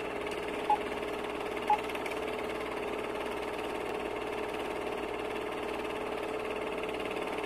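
Film projector running with a steady, fast whirring clatter. Two short countdown beeps sound about a second apart near the start.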